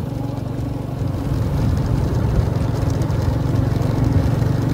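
Motorbike engine running steadily under way, with road noise.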